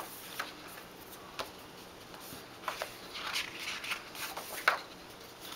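Glossy magazine pages being turned by hand: several short, crisp paper rustles and flicks.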